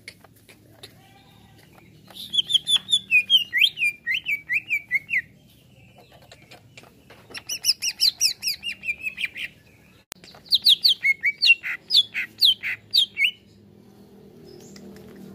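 Greater green leafbird (cucak ijo) singing in three bursts of rapid, sharp notes, the first stepping down in pitch and the last leaping between high and low notes.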